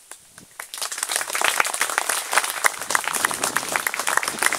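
Crowd applauding: a few scattered claps at first, swelling to full applause about a second in.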